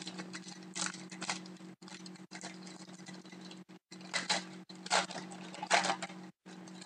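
Foil trading-card pack wrapper crinkling and tearing as it is opened by hand, in several short rustling bursts, the loudest in the second half, over a steady low hum.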